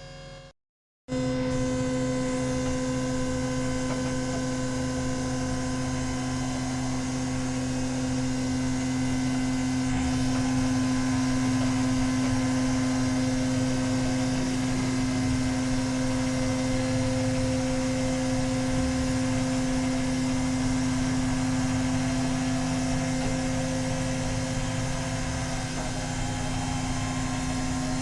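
Tank turret traverse drive running with a steady electric hum over a mechanical rumble, starting about a second in after a brief silence.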